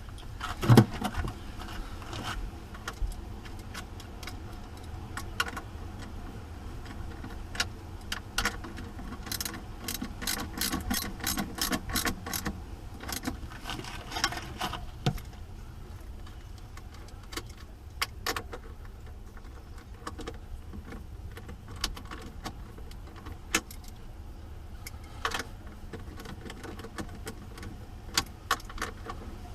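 Hand tools clinking and scraping on battery terminals and cable clamps: an irregular run of sharp metallic clicks and knocks with short bursts of scrubbing, over a steady low hum.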